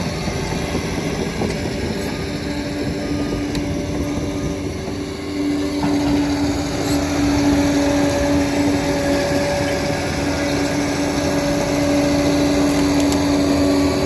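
Liebherr 746 crawler dozer's diesel engine running with a steady drone, stepping up louder about halfway through.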